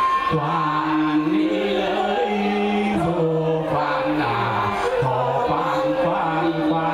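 A man singing a slow Vietnamese chèo-style song with long held notes through a microphone, over live music accompaniment.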